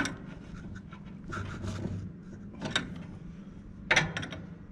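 A spanner clicking and scraping on a hydraulic pipe fitting as it is loosened: a few sharp metallic clicks, twice near the end in a quick cluster, with a short rustling scrape about a second and a half in.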